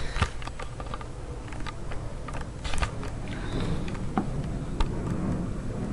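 Handling noise: irregular light clicks and taps, with a few sharper knocks.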